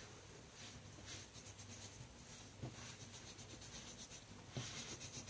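Pastel pencil scratching over textured watercolour paper in quick, faint repeated strokes.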